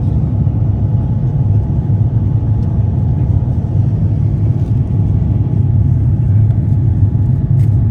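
Steady low rumble inside the cabin of an Airbus A350-900 climbing out after takeoff: engine and airflow noise heard from a window seat near the wing.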